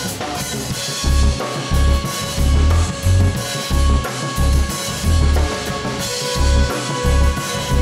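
Background music with a steady bass-drum beat under sustained held notes; the beat comes in about a second in.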